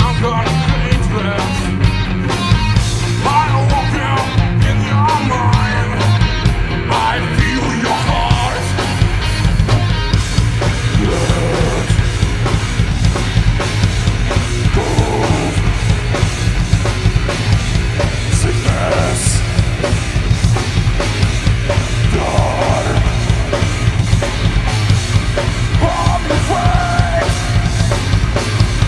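Rock band playing live with drum kit, electric guitar and bass guitar, with a steady heavy low end throughout.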